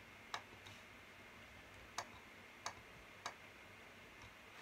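Computer mouse button clicking as dialog buttons are pressed: a handful of sharp single clicks, irregularly spaced about half a second to a second and a half apart, over a faint low hum.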